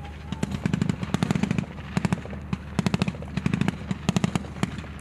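Automatic gunfire from rifles in short bursts, several rapid shots at a time, the bursts following one another about every half second to a second.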